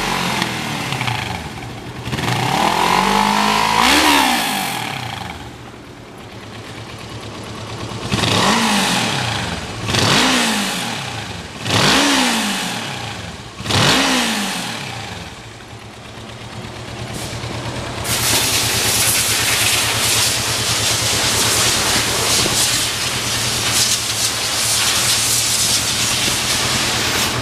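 2007 Kawasaki Ninja 650R's parallel-twin engine running on a stand. It is revved up and let fall once, then blipped sharply four times about two seconds apart, then settles to a steady idle with a hiss over it for the last third.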